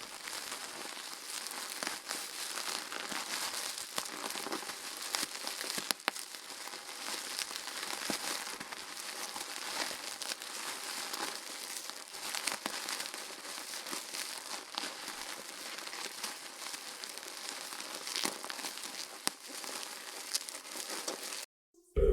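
Steady crackling and rustling, thick with small sharp clicks, that stops abruptly near the end.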